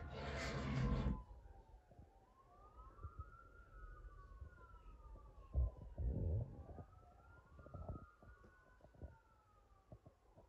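Faint siren wailing, its pitch slowly rising and falling, with two wails overlapping. Loud music cuts off about a second in, and there are a couple of low thumps around the middle.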